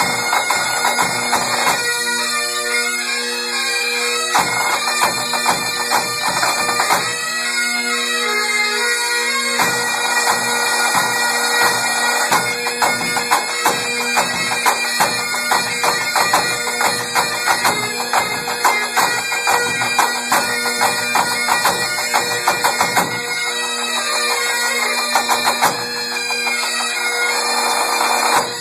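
Pipe band playing: Highland bagpipes sound a steady drone under the chanter's tune, with pipe band snare drums and tenor drums beating along. The drumming thins out in a few short stretches and is busiest through the middle.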